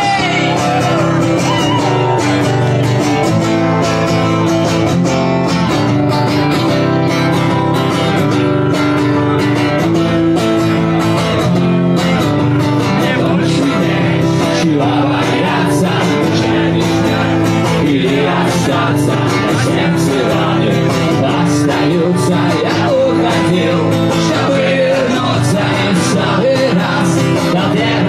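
Live rock music: a strummed acoustic guitar with a steady beat and a male voice singing.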